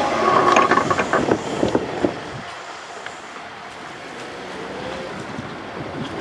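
The tail of a Kintetsu 12410-series and 12600-series limited express passing: wheels clicking and clattering over rail joints, dying away about two and a half seconds in and leaving a quieter background with faint ticks.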